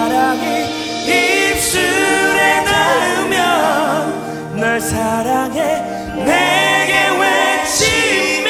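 Male vocalist singing a slow pop ballad live into a microphone, his voice bending through wavering, ornamented notes over steady instrumental accompaniment.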